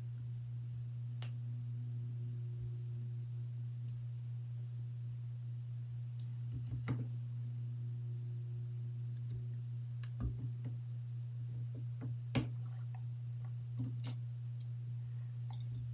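Small fly-tying scissors snipping at the head of a fly in the vise: a few separate sharp clicks, starting about seven seconds in, over a steady low hum.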